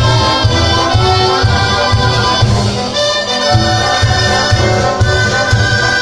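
A txistu band with accompaniment playing a lively dance tune: several melody lines held over a steady low beat, which drops out for a moment about three seconds in.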